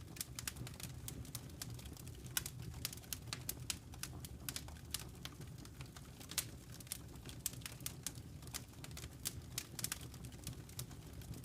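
Faint, irregular ticks and crackles over a low, steady hum.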